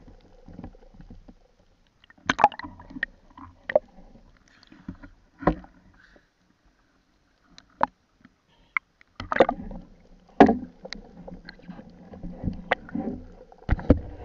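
Water splashing and sloshing against a diving camera, broken by a dozen or so irregular sharp knocks, with a quiet gap in the middle.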